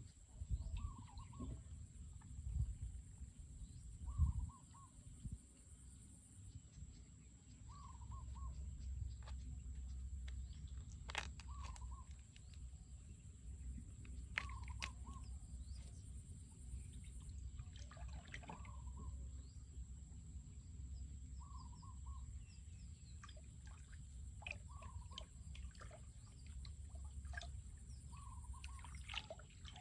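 A bird calling a short, wavering note over and over, about once every two seconds, with a low rumble underneath and a few sharp clicks.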